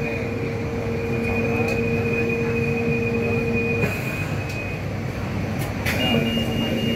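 Hong Kong Light Rail Phase III car running, heard on board: a steady low electrical hum with a high steady whine over the rumble of the car. The hum drops out a little under four seconds in. It returns about two seconds later, along with a slightly higher whine that starts with a click.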